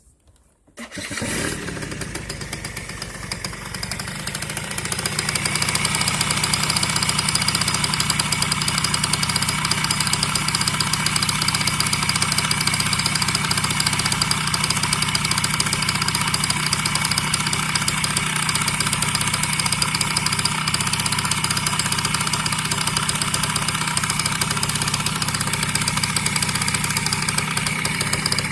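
Yamaha BW's 50 (2JA) scooter's two-stroke engine starts about a second in and idles steadily, a little louder after about five seconds, with a knock from inside the engine whose cause the owner does not know.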